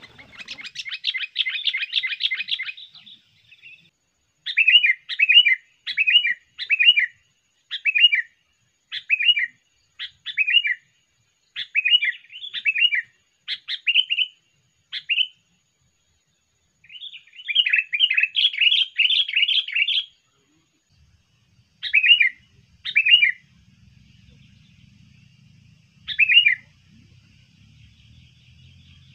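Sooty-headed bulbul calling: bursts of rapid scolding chatter at the start and again later, with a run of short repeated phrases in between and a few single calls near the end.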